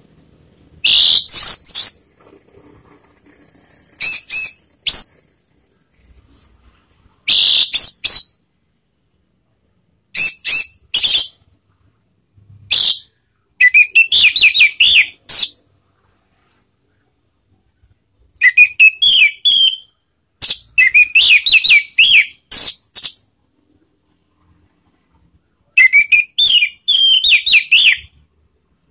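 Orange-headed thrush singing: loud whistled and warbled song phrases of one to two seconds or so, about nine of them, each broken off by a pause of silence.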